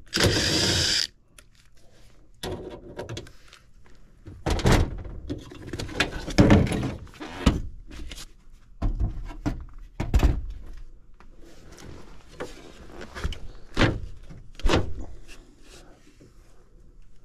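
Knocks, thunks and scrapes of metal as a stuck evaporator coil is tugged and worked in its sheet-metal cabinet, the coil binding in its slide rails. A harsh burst of noise lasting about a second opens it.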